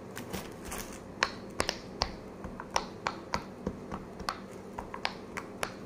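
Silicone pop-it fidget toy's bubbles being pressed in, a quick, uneven series of small sharp pops, about three a second.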